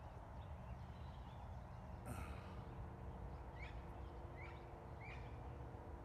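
Faint wild parrot calls: a harsh squawk about two seconds in, then three short downward-sliding calls about three-quarters of a second apart, over a steady low rumble.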